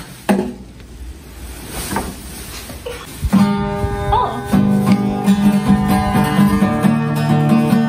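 Acoustic guitar strummed, chords ringing out from about a third of the way in, after a few seconds of quieter handling sounds as the guitar is picked up.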